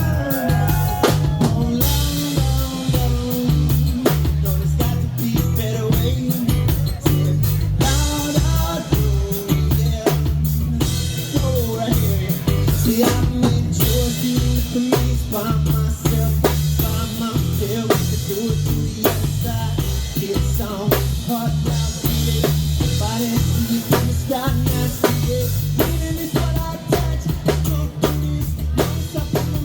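Live reggae band playing an instrumental passage: drum kit with rimshots and snare over a heavy, steady bass line, with a melodic lead line wandering above.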